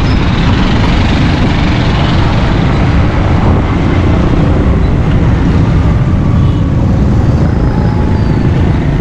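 Steady rush of wind and traffic noise while riding a motorcycle through city traffic, heaviest in the low rumble.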